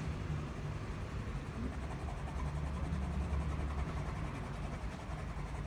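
A steady low rumble of background noise, with no distinct event.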